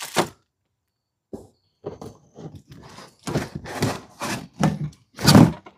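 Plastic packaging crinkling and rustling in a string of irregular bursts as items are unwrapped and pulled from a box, the loudest burst near the end.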